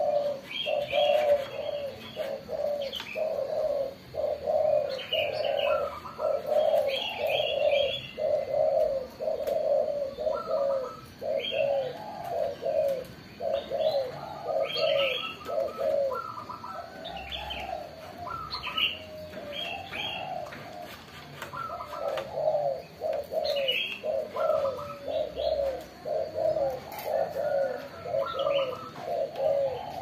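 Caged doves cooing in a continuous run of short notes, about two a second, with higher chirps from small birds scattered over them.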